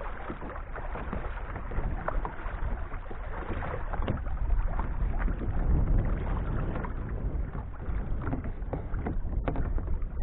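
A double-bladed kayak paddle dipping and pulling through lapping lake water, with splashes and drips from the blades. A low wind rumble is on the microphone.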